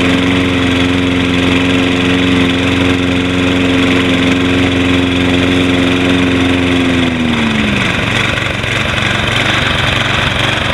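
Toro Recycler 20333 walk-behind mower's Briggs & Stratton engine running steadily with the blade engaged, still cold. About seven seconds in its pitch drops and the steady note breaks up into a rougher, uneven sound.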